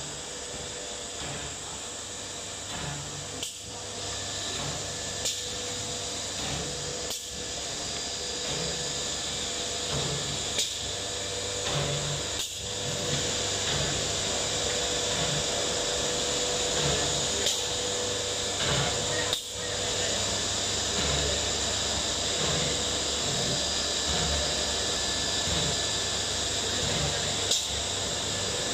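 CNC router spindle cutting a wood panel: a steady, drill-like whine with hiss.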